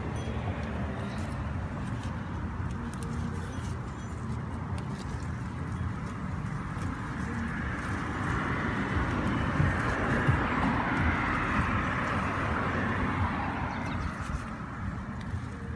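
Steady outdoor rumble that swells for several seconds in the middle and fades again, with light rustling and snapping of amaranth leaves and stems as young shoots are picked by hand.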